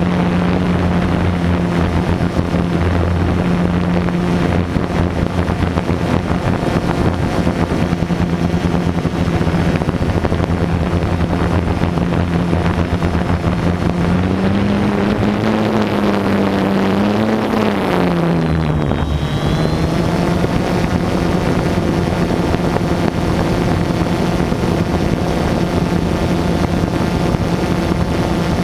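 Drone's motors and propellers humming steadily at one pitch. About halfway through the pitch rises, then it drops sharply and holds lower: the throttle is changing.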